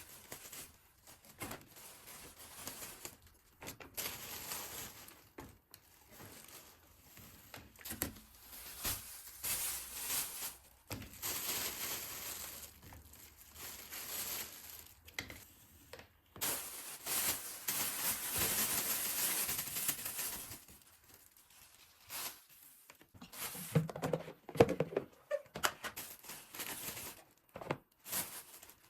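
Kitchen handling sounds: packaging rustling and crinkling in irregular bursts, with a steadier rush of noise lasting about four seconds midway and a few clattering knocks near the end.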